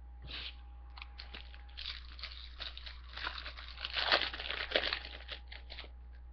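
Foil trading-card pack wrapper crinkling and crackling as it is torn open and handled, a dense run of crackles that is loudest about four to five seconds in.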